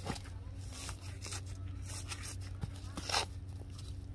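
Gritty potting mix with perlite sliding and scraping out of a plastic nursery pot into another pot, in a few short rustling pours, the loudest about three seconds in. A steady low hum runs underneath.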